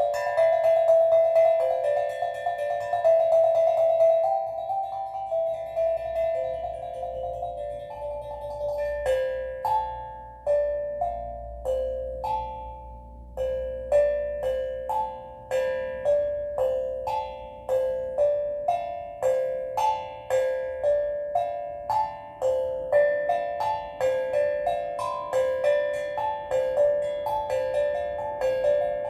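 Steel drum played slowly and softly: ringing notes that blend into long sustained tones at first, then a melody of single struck notes, about one or two a second, each left to ring out.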